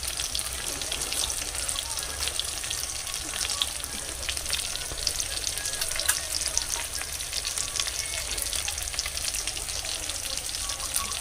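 Chicken pakoras frying in oil in a kadhai: a steady sizzle with dense fine crackling.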